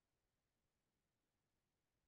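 Silence: the audio track is muted or gated, with no sound at all.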